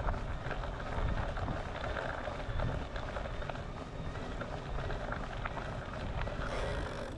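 Wind buffeting the microphone over a steady rumble and scattered small rattles from moving along a track.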